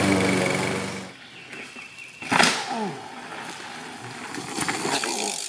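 A push lawn mower's small engine running, cut off abruptly about a second in. About two seconds later comes a single sharp knock, then short falling squeaks and faint clicks and rattles from a mountain bike on a dirt trail.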